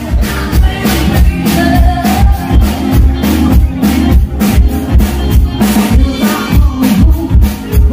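Live band playing: a drum kit keeping a steady beat over bass guitar and guitars.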